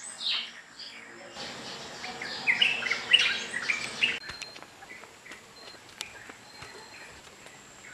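Birds chirping in short quick calls, bunched most thickly from about two to four seconds in, over a thin, steady, high insect drone.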